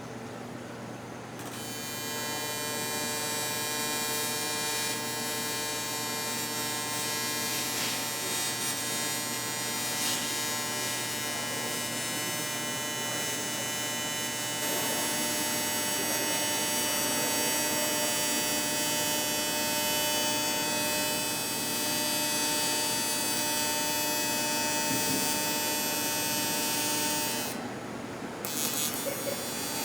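AC TIG welding arc on aluminum: a steady electrical buzz with many overtones that starts about a second and a half in, stops briefly near the end, then strikes again.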